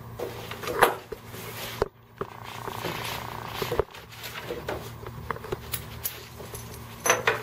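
Handling noise of a CT-6 traction splint's ischial strap and fittings being put on at the top of a mannequin leg: rustling nylon webbing with scattered light clicks and knocks. There is a sharper knock about a second in and a quick cluster of clicks near the end.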